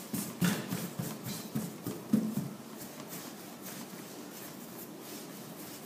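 Hands rolling a strand of brioche dough on a floured stainless-steel worktop: soft rubbing and a few light pats in the first couple of seconds, then only a faint steady hiss.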